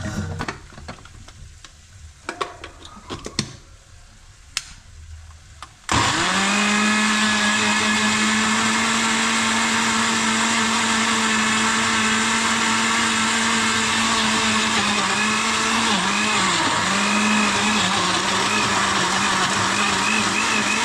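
Electric kitchen blender switched on about six seconds in and running steadily, puréeing tomatoes into a smooth liquid; its pitch dips briefly about two-thirds of the way through. Before it starts there are a few light clicks and knocks.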